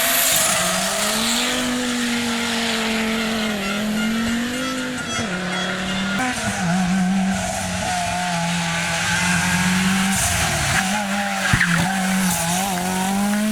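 Rally car engine at high revs, its note held high with short dips as the driver shifts or lifts, then climbing again near the end. A single sharp pop comes about eleven and a half seconds in.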